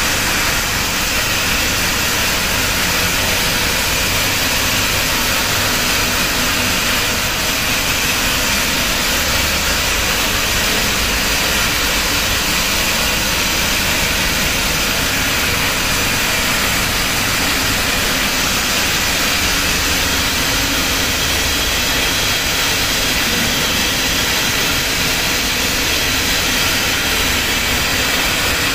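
Roller-die wire drawing machine running steadily, its capstan drums turning and the wire feeding through the rolling cassette dies under a spray of drawing lubricant. The noise is loud and even throughout, with no change in speed.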